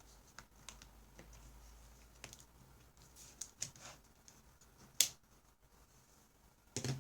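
Scattered small plastic clicks and handling knocks as the ThinkPad X260's external battery is unlatched and pulled out, with one sharp click about five seconds in and a cluster of knocks near the end.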